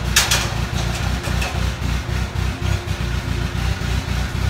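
Forklift engine idling with a steady, evenly pulsing low rumble; a short knock sounds just after the start.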